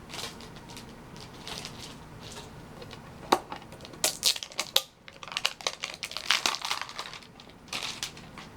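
Small metal Pokémon mini tins being handled and pried at by hand: a sharp click about three seconds in, then a run of clicks, taps and rustling.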